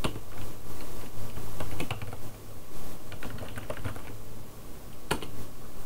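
Typing on a computer keyboard: runs of quick key clicks, then a single louder click about five seconds in, over a low steady hum.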